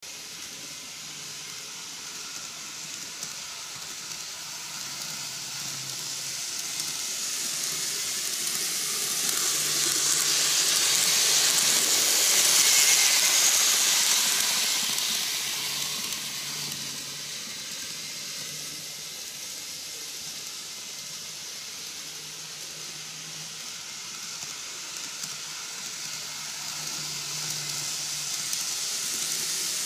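N-gauge Kintetsu model trains running on TOMIX canted track: a steady rolling hiss of the small wheels on the rails with a low hum underneath. It swells to its loudest as a train passes close about halfway through, fades, and builds again near the end.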